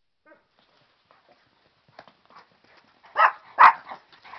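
Light hoofbeats of a week-old mustang foal running over dirt, a scatter of soft thuds, with two short, loud animal calls in quick succession a little after three seconds in.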